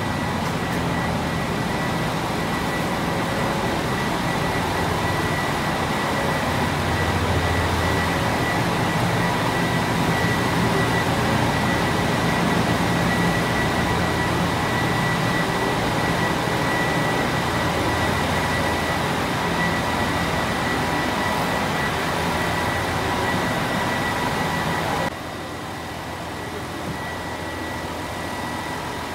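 Steady drone of the diesel-hauled Kushiro Shitsugen Norokko train standing at the platform: a low engine rumble with a thin, steady high whine over it. About 25 s in it cuts abruptly to a quieter steady hum.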